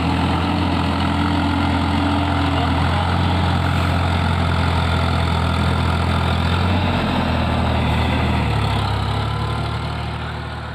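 Indo Farm 3048 tractor's diesel engine running steadily while working a flooded paddy field; its note shifts slightly about eight seconds in, and the sound fades away near the end.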